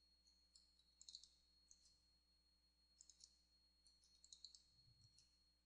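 Near silence with faint scattered clicks from a computer mouse and keyboard in use.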